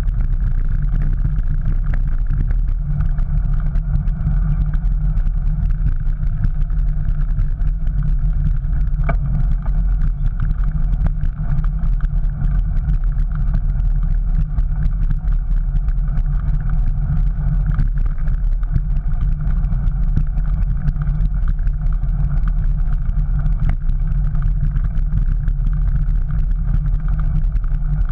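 Steady wind rumble and rolling noise from a camera mounted on a moving bicycle, riding over paved paths, with scattered small clicks and rattles.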